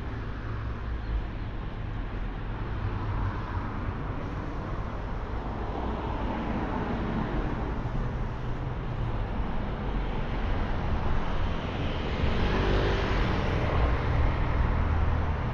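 City road traffic: cars and vans passing close by over a steady low rumble, one swelling past about halfway through and a louder one near the end.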